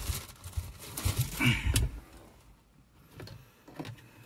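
Clicks and knocks of plastic car interior trim pieces being handled, a cluster of them in the first two seconds, then a few faint ticks.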